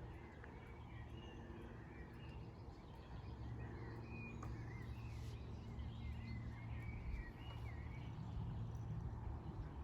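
Small birds chirping and twittering faintly, with a steady low rumble underneath.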